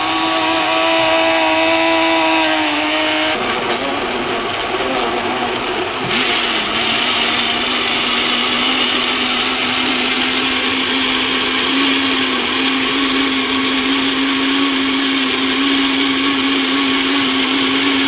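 Electric countertop blender running at full speed, pulping chunks of cucumber and green apple in water into juice. The motor whine drops in pitch about three seconds in, then slowly climbs again as the mix turns smooth.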